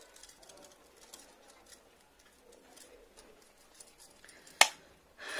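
Quiet room with faint small ticks, then one sharp click about four and a half seconds in, followed by a brief rustle near the end.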